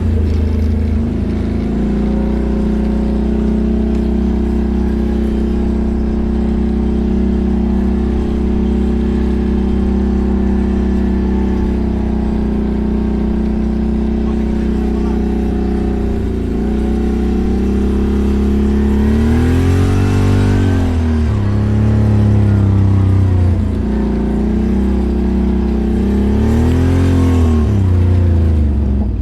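ATV engine running at a steady speed, then revved up and eased back down twice, once about two-thirds of the way through and again near the end.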